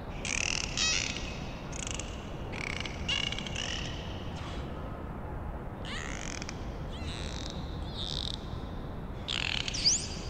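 A string of short animal calls, a few a second, some sliding in pitch and some holding a shrill note, over a faint hiss.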